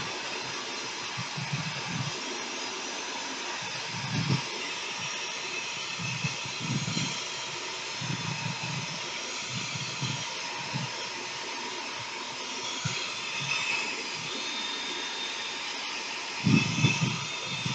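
Handheld hair dryer running steadily, a constant rushing hiss of blown air, with uneven low rumbles every second or two and a stronger one near the end.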